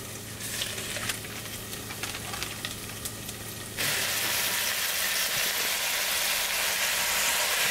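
Blocks of raw ground meat frying in a hot stainless steel pot, sizzling with scattered pops and crackles, and pushed around with a wooden spoon. The sizzle turns much louder about four seconds in.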